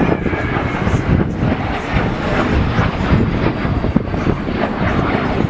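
A fixed-wing aircraft's engine, loud and fairly steady, its level wavering unevenly.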